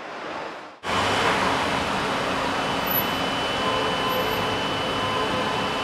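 A faint swelling hiss, then, about a second in, a loud steady rushing roar cuts in abruptly, with a faint steady whine in it.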